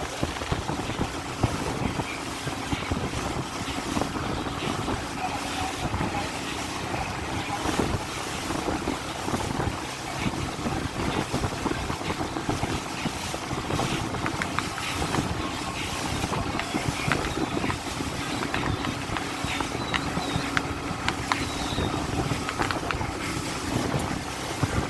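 Motorboat under way through waves: its engine runs steadily beneath wind rumbling on the microphone, with frequent short knocks.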